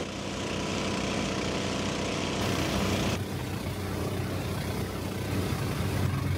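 Long-tail boat engine running steadily under way, a low, even motor hum with hiss over it; the hiss thins a little about three seconds in.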